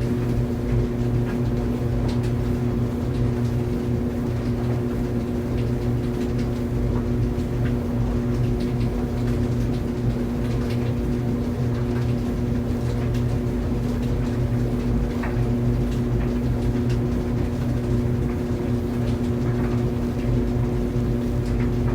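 Clothes dryer running steadily: an even low hum with a few steady tones, and faint scattered ticks over it.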